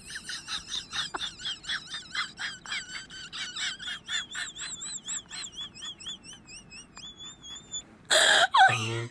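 A fast run of high, whistle-like chirps, about four a second, each rising and falling in pitch, slowing toward the end and finishing in a short held whistle. Near the end, two loud bursts of noise, the second with a falling sweep.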